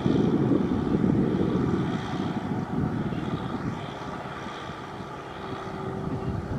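Tractor engine running, loudest at first, easing off about four seconds in and picking up again near the end.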